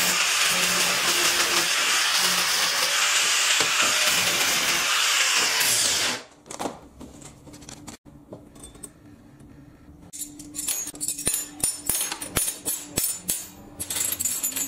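Angle grinder grinding a flat steel bar, running steadily for about six seconds, then switched off and winding down. About ten seconds in, steel spanners start clinking in quick, irregular clicks as they are laid out on a steel workbench.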